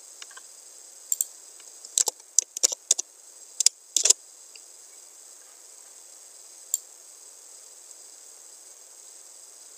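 Computer keyboard and mouse clicking: a cluster of short sharp clicks in the first four seconds and one more about seven seconds in, over a faint steady hiss.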